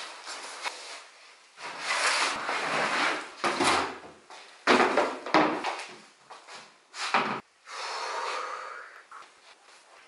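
Handling noise: clothing rustling as a coat comes off, and several knocks and scrapes from a hard guitar case being lifted and moved.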